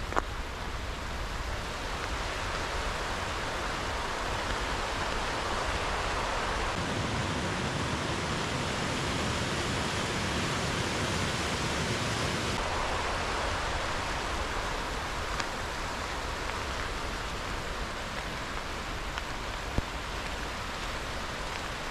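Steady rushing of a mountain stream, an even hiss of running water that fills out a little in the middle. A sharp tick sounds once near the start and once near the end.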